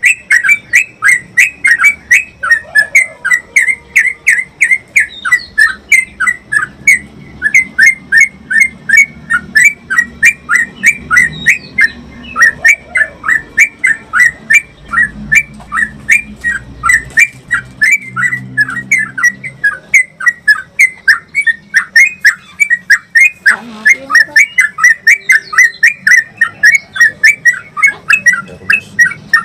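Yellow-vented bulbul (trucukan) calling in a long, unbroken run of short, rapid chattering notes, about three to four a second: the long 'ropel' call that bird keepers use to train caged bulbuls.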